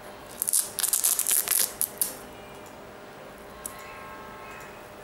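Fingers rubbing and gripping the upper of an Air Jordan 8 sneaker: a quick run of scratchy rustles in the first two seconds, then quieter handling.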